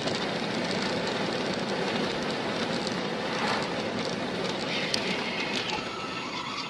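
Steady road and wind noise of a car cruising at highway speed, as picked up by a dashcam inside the car, with a faint high tone joining about five seconds in.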